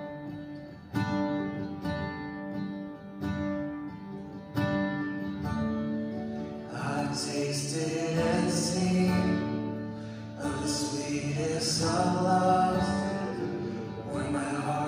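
Worship song played on acoustic guitar, with a singing voice coming in about halfway through.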